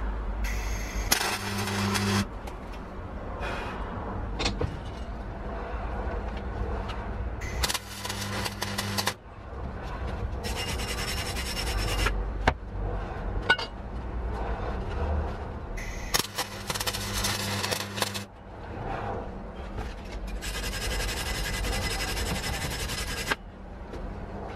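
Several short spells of arc welding crackling on a steel bicycle tube, alternating with a wire brush scraping over the welded steel.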